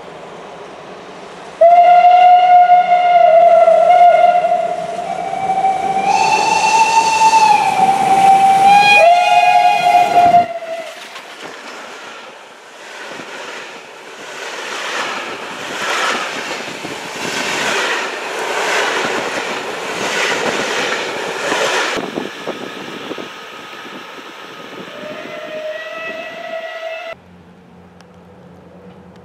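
Steam locomotive whistles, very loud, sounding in two long blasts that shift in pitch as the double-headed steam special, ÖBB 78 618 and 638 1301, approaches. Then the rhythmic exhaust beats and wheel noise of the train rushing past. A shorter, fainter whistle sounds near the end.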